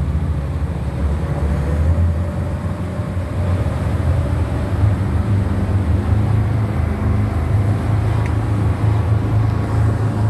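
Speedboat engine running steadily at speed, a low drone mixed with the rush of wind and water.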